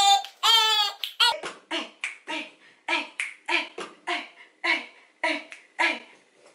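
A woman's voice: a short sung phrase, then a string of short rhythmic vocal sounds, about three a second.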